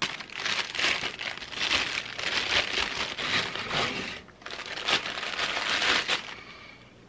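A clear plastic bag crinkling and rustling as a fishing reel is worked out of it by hand. There is a short break about four seconds in, and the sound stops near the end.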